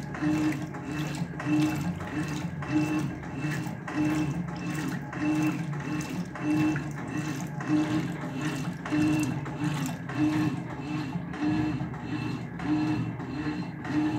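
Electrolux LTC10 top-loading washing machine agitating its wash load, the agitator turning back and forth through soapy water. It makes an even, repeating churning rhythm of a little under two strokes a second.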